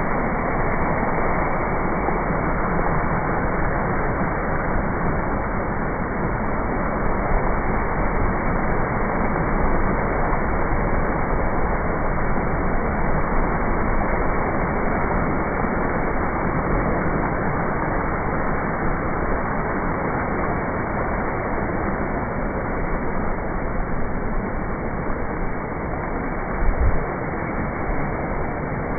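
Steady rushing noise of water, even and unbroken, with a couple of brief low bumps near the end.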